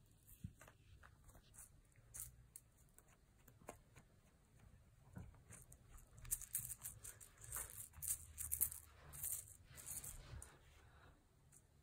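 A kitten playing with its toys: scattered light taps and clicks, then, about halfway through, several seconds of crinkly rustling and scratching.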